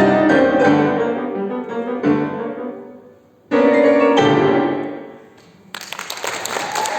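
Piano for six hands playing the closing chords of a classical piece. The playing thins out and nearly pauses, then a loud final chord is struck about halfway through and rings away. Audience applause breaks out in the last second or so.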